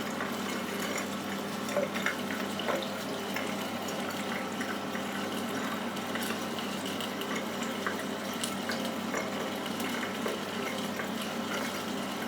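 A tap running steadily into a sink, a constant rushing of water, with a few faint small clicks.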